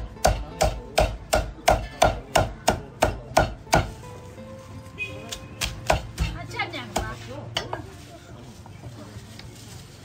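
Cleaver chopping braised goose on a thick round wooden chopping block: an even run of about three chops a second for the first four seconds, then a few scattered chops.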